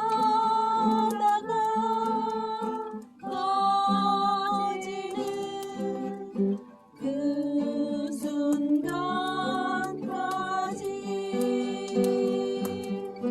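Music: a voice singing a slow song in long held phrases over acoustic guitar, with brief pauses between phrases.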